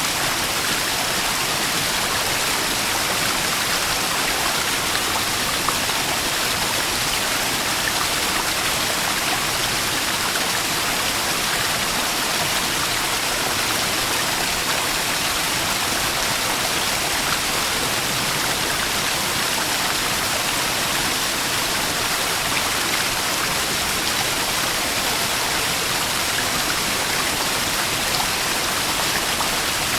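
Small waterfall splashing and rushing steadily, an even hiss with no breaks.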